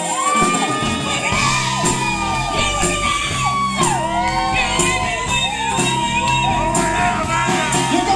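Live band playing amplified pop-rock, with electric guitars, bass and a drum kit with cymbal hits. Several singers sing together into microphones, holding long notes that slide in pitch.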